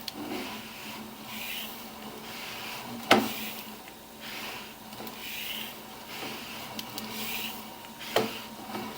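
Sewer inspection camera's push cable being pulled back out of the line, rubbing in repeated strokes roughly once a second. Two sharp knocks come about three seconds in and near the end, over a faint steady hum.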